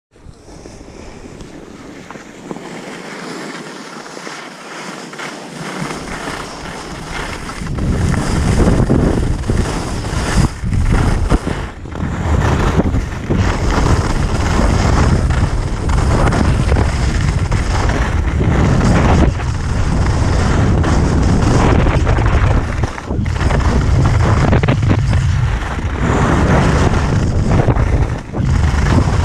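Wind buffeting a body-worn action camera's microphone while skiing downhill: a moderate noise for the first few seconds, then loud and gusty from about eight seconds in, once the skier is moving at speed.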